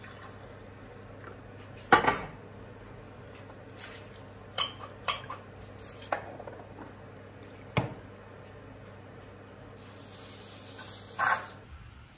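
Kitchen clatter: a small metal coffee pot and drinking glasses clinking and knocking on a countertop in scattered single knocks. The sharpest clink comes about two seconds in, and there is a brief hissing rush near the end.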